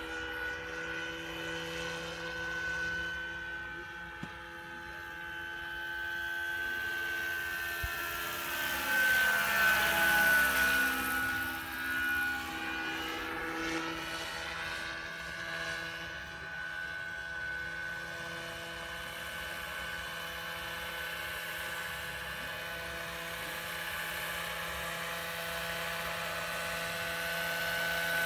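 Electric large-scale Vario BO 105 model helicopter flying, with the steady whine of its motor and rotors. It swells to its loudest about ten seconds in as it passes close, then grows louder again near the end as it comes in low.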